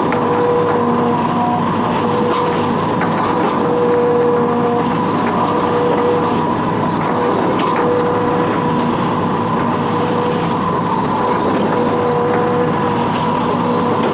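Hitachi Zaxis 210F amphibious excavator's diesel engine running steadily. A humming whine cuts in and out every second or so over the engine noise.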